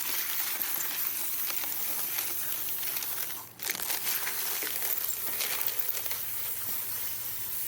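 Water spraying onto a batch of tumbled rocks, rinsing off pre-polish grit and slurry: a steady hiss that breaks off briefly about three and a half seconds in, then starts again.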